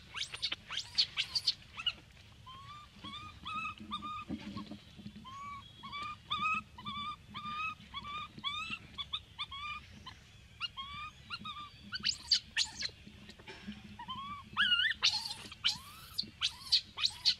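Baby macaque crying: a long run of short, arched whimpering calls, two or three a second, with bursts of shrill high squeals at the start, again about twelve seconds in, and near the end.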